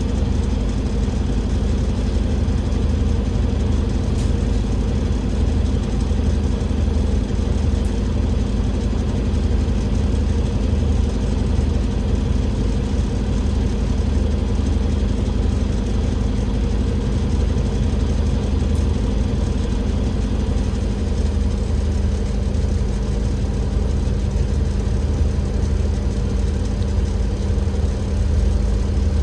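Cummins L9E six-cylinder diesel engine of an Alexander Dennis Enviro500 MMC double-decker bus running steadily, with a constant low drone that holds the same pitch throughout.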